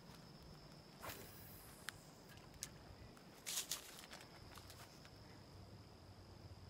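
Faint outdoor ambience with a few scattered light clicks and rustles, the loudest cluster about three and a half seconds in, over a steady thin high-pitched tone.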